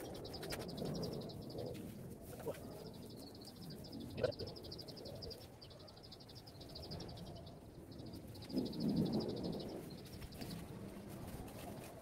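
Sugar palm (ijuk) fibre being gathered and pressed together by hand: a dry rustling and scraping, loudest about nine seconds in, with a sharp tap about four seconds in. Behind it, a high, fast-pulsing animal trill comes and goes in stretches.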